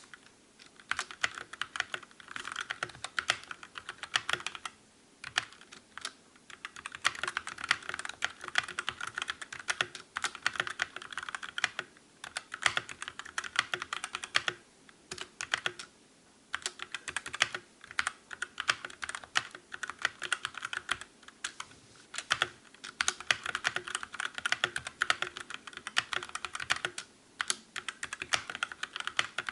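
Typing test on a Calibur mechanical keyboard with Otemu red (linear) switches: quick runs of key clacks, broken by several short pauses.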